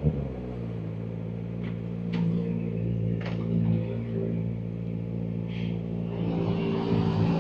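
Kawasaki Ninja ZX-4RR's inline-four engine running at a steady cruise through its Graves aftermarket exhaust, with a few short clicks, getting louder near the end.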